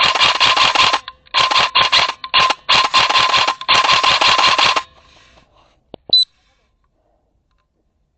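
Airsoft electric replica rifle firing several bursts of rapid automatic fire over about five seconds, with a steady whine under the shots. About six seconds in there are two clicks and a short high beep.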